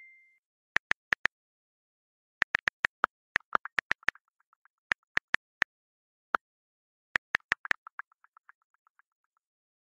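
Sharp, dry clicks over silence, some single and some in quick runs. Two of the runs trail off into fainter, evenly spaced ticks.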